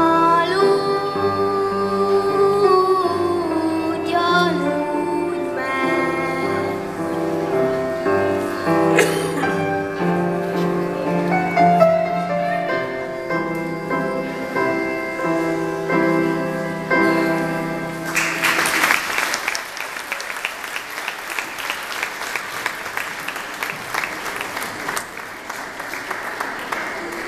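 Children's choir singing a song, which ends about two-thirds of the way through; the audience then applauds for the rest.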